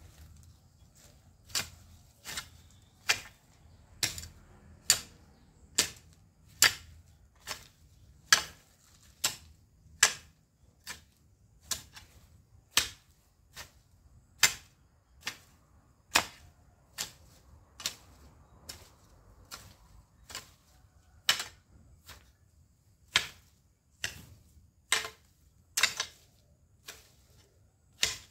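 Metal-bladed hoe chopping into weedy ground, a sharp chop about once a second, steady and even.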